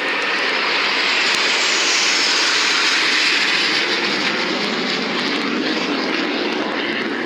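F-16 fighter jet flying past with a loud jet roar. It swells to its loudest about three seconds in, then drops lower in pitch as the jet moves away.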